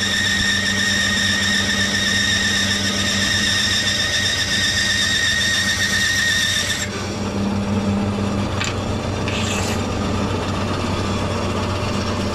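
Bandsaw cutting through a wooden guitar body blank: a steady high whine over the low hum of the saw's motor. About seven seconds in the whine cuts off suddenly as the cut ends, and the motor keeps running.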